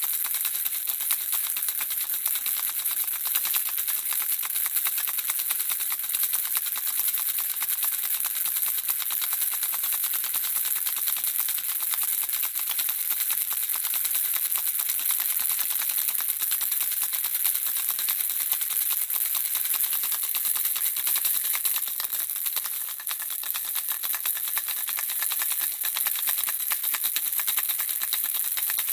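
A handheld baby rattle shaken without pause, the small beads inside clattering as a dense, even patter of light, high ticks. It eases off briefly about two-thirds of the way through.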